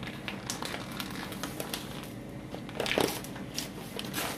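Plastic bag of dry macaroni crinkling and crackling as it is handled, in irregular bursts, with a louder crackle about three seconds in.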